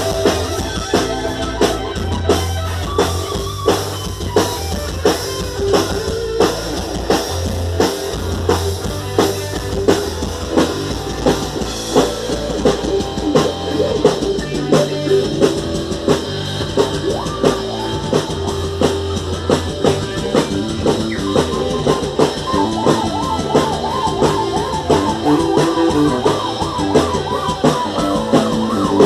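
Rock-style band music with a drum kit keeping a steady beat under bass and guitar.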